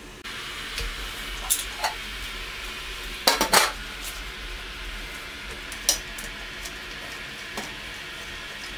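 Clinks and knocks of stainless-steel and glass parts as the lid and recirculation pipe are handled and fitted onto a Grainfather all-in-one brewing system. Several separate clicks, the loudest a double knock about three seconds in, over a steady hiss.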